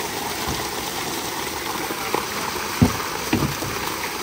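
Water gushing steadily from an outlet into a hand-held net and splashing over it, with two short dull thumps about two-thirds of the way through.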